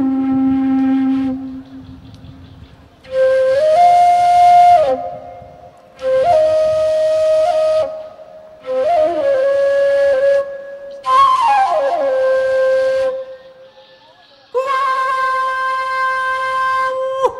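Solo flute playing slow, breathy phrases of long held notes, about six phrases separated by short pauses, several of them opening with a falling slide into the note.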